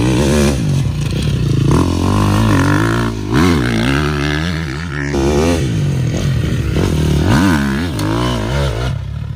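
A dirt bike's engine being ridden hard, its pitch rising and falling several times as the throttle is opened and closed.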